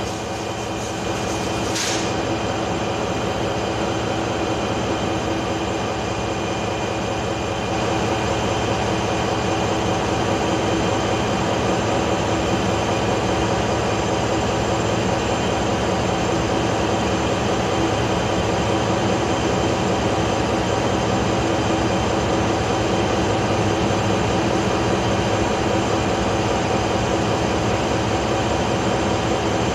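Large diesel generator engine running steadily under its Woodward 721 speed governor: a dense, even engine drone with several steady hum tones. There is a brief click about two seconds in, and the engine gets slightly louder about eight seconds in.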